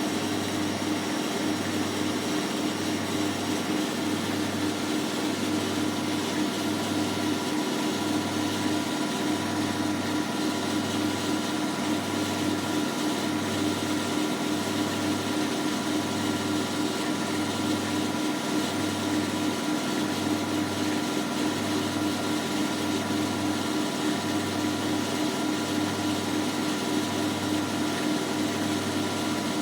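Hotpoint NSWM 843C inverter-motor washing machine running, probably spinning, with a steady motor hum and a low throb about once a second. The owner reports an intermittent scraping noise from this machine when it spins.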